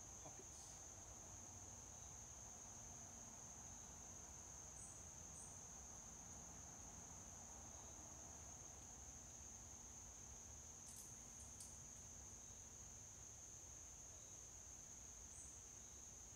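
Faint, steady chorus of insects holding one unbroken high-pitched note, with a few faint ticks about two-thirds of the way through.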